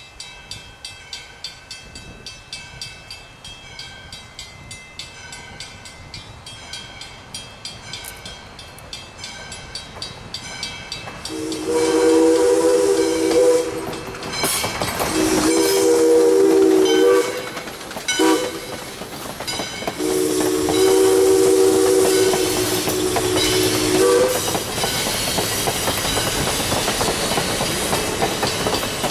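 A grade crossing bell rings about twice a second. Then a locomotive's chime whistle blows the crossing signal: two long blasts, a short one and a long one. Vintage passenger coaches then roll past with their wheels clacking over the rail joints.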